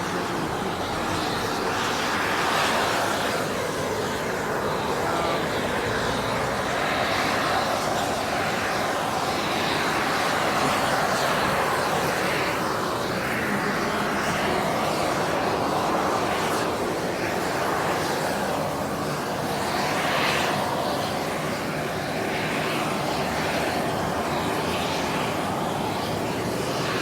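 Beryl Spring's hot spring and steam vent sending out steam and gas with a loud, steady rushing hiss that wavers slightly in strength.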